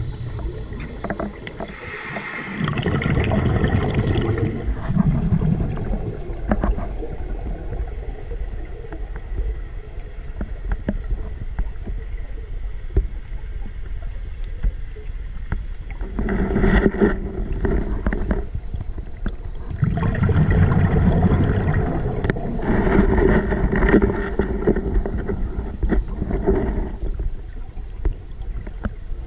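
Scuba regulator breathing heard underwater: exhaled bubbles rumbling and gurgling in long swells, about three of them, with quieter stretches between.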